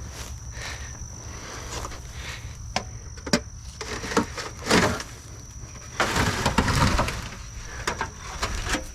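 Footsteps and handling in dry brush and debris: a string of sharp clicks and knocks, a louder rustle about five seconds in, and a dense crackling rustle around six to seven seconds in. Under it runs a steady high insect buzz.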